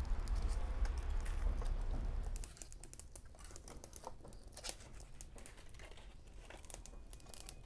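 Wood fire crackling and snapping in a wood-burning stove, with scattered sharp pops and the clatter of firewood sticks being pushed into the firebox. For the first two and a half seconds a low rumble lies over it, then stops suddenly.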